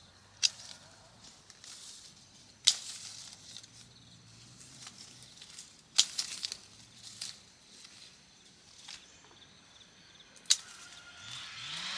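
Sharp knocks or chops: four loud single strikes a few seconds apart, with a few lighter clicks and rustling in between.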